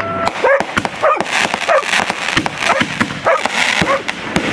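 Consumer aerial fireworks going off in rapid succession in a finale, with many sharp bangs and crackles. Short yelping cries repeat over them about every half second.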